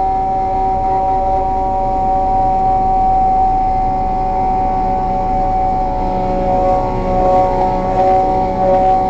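Stainless-steel immersion blender running with a steady motor whine, emulsifying egg and oil into mayonnaise in a steel jug. The whine wavers unevenly in the last few seconds.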